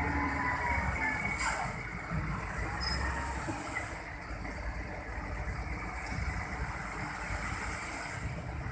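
Excavator diesel engine running steadily, with a continuous mechanical noise and a strong low end.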